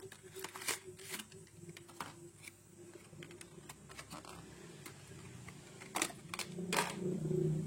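Light scattered clicks and taps of a new SSD's sealed packaging being opened and handled, with two louder clicks about six and seven seconds in. A low hum swells near the end.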